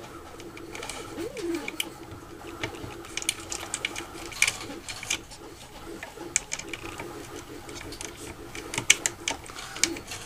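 Scattered small metallic clicks and taps from a bolt and T-nut being fitted and lined up by hand, over a steady low hum.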